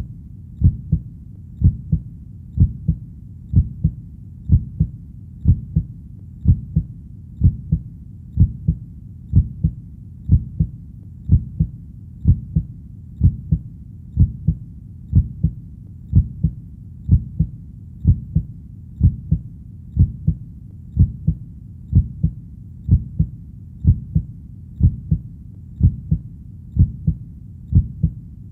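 Heartbeat: steady low thumps at about one beat a second, over a faint constant low hum between beats.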